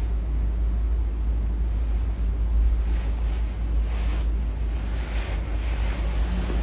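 A sleeping woman snoring: noisy breaths come and go over a steady low rumble.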